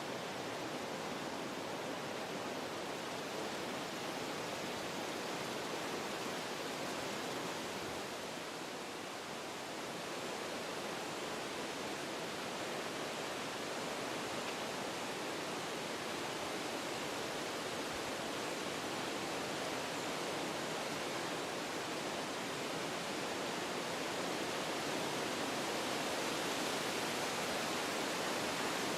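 Wind blowing through forest trees, a steady rushing of leaves and branches that eases slightly about nine seconds in and swells a little toward the end.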